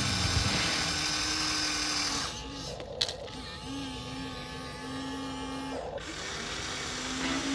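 Electric motors of a radio-controlled toy excavator whining, the pitch sliding up and down and stopping and starting as the arm digs and swings. One sharp click comes about three seconds in, and a steady hiss drops away for a few seconds in the middle.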